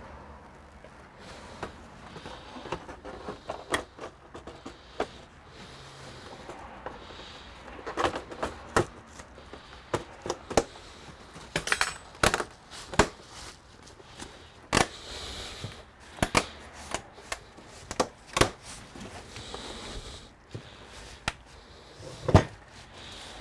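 Irregular clicks, taps and knocks of hard computer parts and tools being handled, a dozen or more sharp ones, louder and more frequent from about a third of the way in, the loudest near the end.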